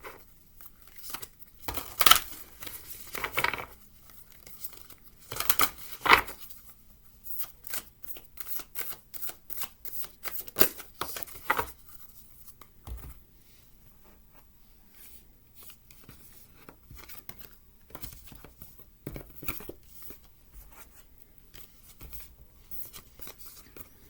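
A deck of oracle cards being shuffled and handled: a run of irregular card snaps and rustles, busiest and loudest in the first half, sparser later.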